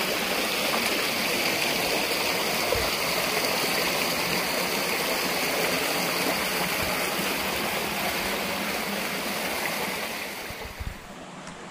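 Shallow mountain creek water rushing steadily over rock slabs, becoming quieter near the end.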